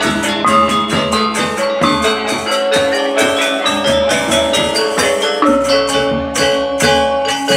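Balinese gamelan gong ensemble playing a lelambatan piece: bronze metallophones ringing in dense strikes over hanging gongs, with hand cymbals (cengceng) clashing rapidly.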